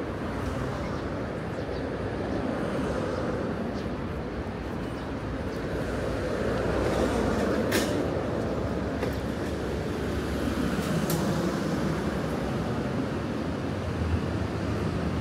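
City street traffic: a steady rumble of road vehicles, swelling as a large vehicle passes about halfway through, with a couple of sharp clicks.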